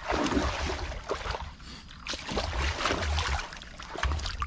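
Shallow muddy water sloshing and splashing irregularly as hands grope through the mud for catfish.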